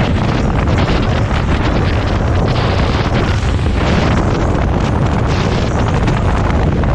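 Wind blowing hard across the microphone: a loud, steady low buffeting with crackle running through it.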